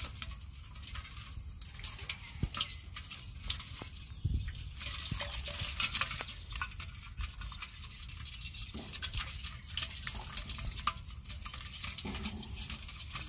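Live shrimp and small eels flicking and wriggling in a little water in a pot: many small irregular clicks and light splashes, busiest about five to six seconds in.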